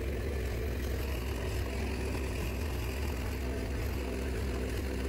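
Caterpillar tracked excavator's diesel engine running steadily, a low even drone with no change in pitch.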